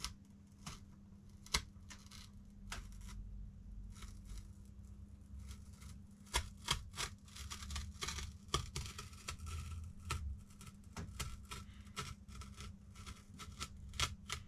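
Utility knife cutting a vinyl sticker on cardboard: a run of short scraping strokes and sharp clicks, busiest about halfway through.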